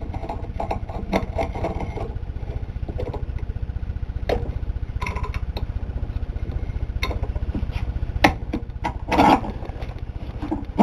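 Two steel C-clamps being screwed down on a Ford C4 transmission clutch drum to compress the clutch piston return spring: scattered clicks and knocks, with a longer rattle near the end. A steady low hum runs underneath.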